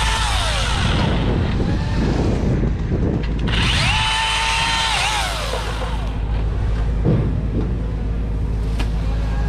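Battery-powered chainsaw motor whining up to speed, holding briefly and spinning down, twice: once at the start and again from about three and a half seconds in, over a steady low rumble.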